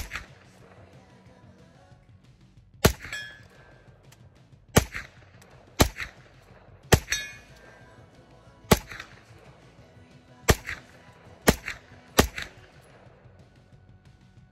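Grand Power Stribog 9mm pistol-caliber carbine firing single shots at a slow, uneven pace, about a dozen in all, roughly one to two seconds apart. Several shots are followed by a brief metallic ring.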